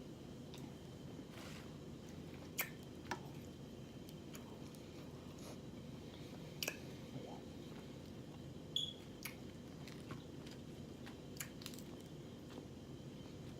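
A person chewing rotisserie chicken wrapped in lettuce close to the microphone: scattered sharp mouth clicks and small crunches, about a dozen, over a steady low hum.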